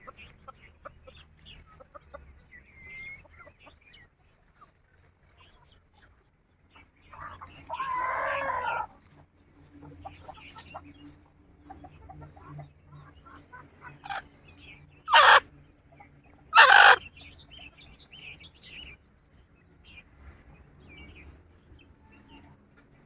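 Free-range chickens clucking with scattered short calls. A rooster crows for about a second and a half around eight seconds in, and two loud, short calls come close together near the middle.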